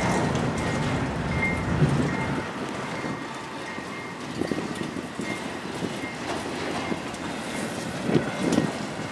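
Freight train cars rolling past: a steady rumble of steel wheels on the rails, with a faint high tone coming and going and a few heavier knocks near the end.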